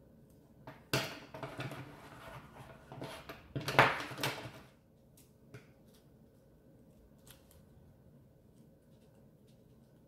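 Scissors snipping through adhesive vinyl on its backing sheet. The vinyl sheet rustles as it is handled. A rough stretch of snips and crackling starts about a second in and lasts about four seconds, loudest near the end of that stretch, followed by only a few faint clicks.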